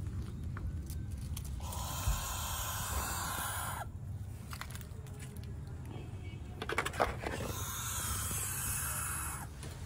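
Owl chicks hissing: two long hisses of about two seconds each, one about two seconds in and one near the end, over a steady low hum.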